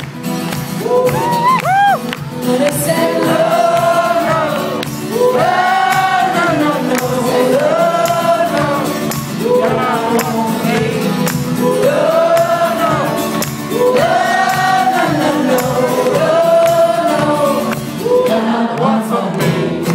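Live song: a woman singing at the microphone over her own acoustic guitar, in sung phrases that rise and fall, one about every two seconds. The vocal sounds layered, like several voices together.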